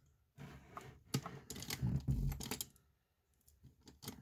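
Small plastic makeup items clicking and rattling as they are handled and picked through, with a dull bump about two seconds in.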